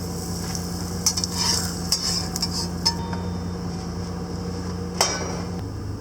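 A utensil stirring and scraping in a frying pan of cooking omelet, with scattered clinks and a sharp click about five seconds in, over a faint sizzle.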